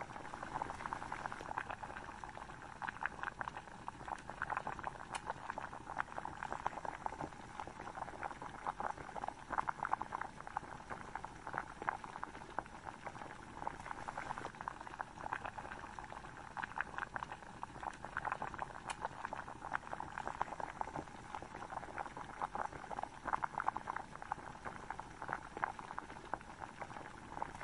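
Chicken gravy simmering in a pot, bubbling and popping with a steady stream of small pops.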